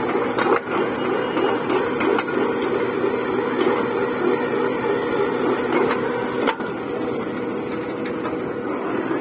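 Truck-mounted borewell drilling rig running steadily as it drills, with a few sharp knocks. The loudest knock comes about six and a half seconds in.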